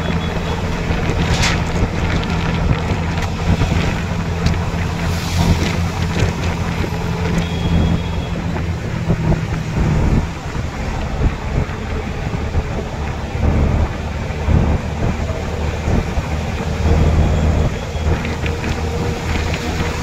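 Steady road and wind noise from a moving vehicle, with a low steady drone underneath and wind buffeting the microphone.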